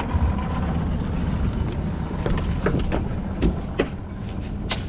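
Boat's outboard motor idling steadily, with a few scattered clicks and knocks and one sharp knock near the end.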